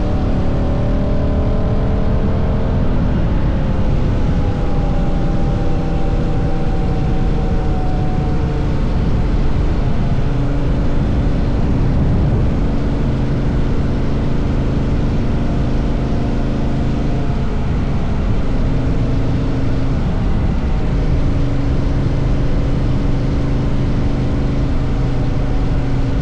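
Honda CRF1000L Africa Twin's parallel-twin engine running under steady throttle on the move, with wind rushing over the microphone. The engine note falls over the first few seconds, holds, then dips briefly about two-thirds of the way through before settling again.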